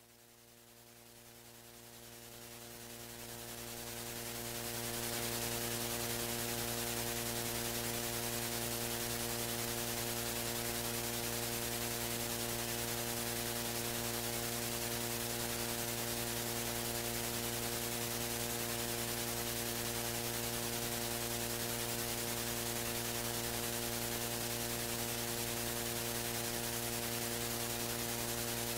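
Electrical mains hum with a steady hiss, rising in level over the first five seconds and then holding steady.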